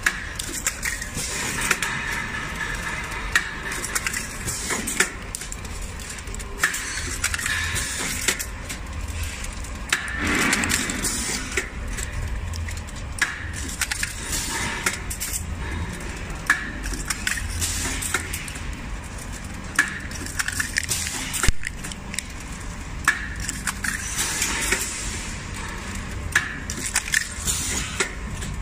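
Automatic blister packing machine running: steady machine noise with frequent sharp clicks and clacks from its moving parts.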